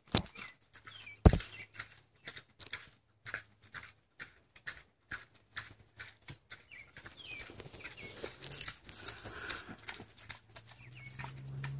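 Pot-bellied pig eating iceberg lettuce: irregular wet lip-smacking and crunching chews, with two sharp knocks in the first second and a half.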